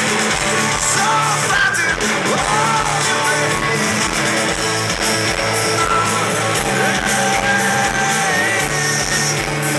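Rock band playing live, heard from within the crowd: a male lead vocal sung over electric guitar, bass and drums.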